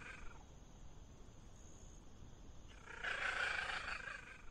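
Leopard cat calling: two harsh, hissing-snarling sounds about three seconds apart, the first fading just after the start and the second lasting over a second from about three seconds in. A low rumble runs between them.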